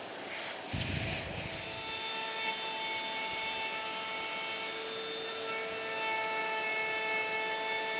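Cordless palm router's motor running at speed, a steady high whine that comes in about two seconds in, over the hiss of a dust extractor. There is a low bump about a second in.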